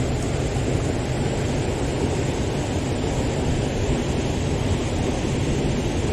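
Fast, turbulent water rushing steadily through a spillway inlet channel: a loud, even roar with no breaks.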